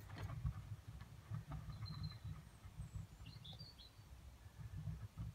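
Faint, uneven low rumble with a bird chirping briefly, one short high chirp about two seconds in and a little cluster of chirps just after three seconds.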